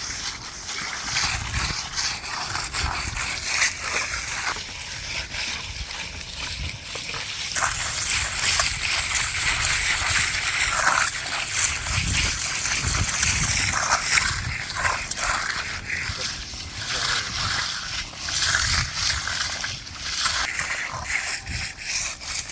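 Wet concrete sloshing and splattering as it is worked by hand.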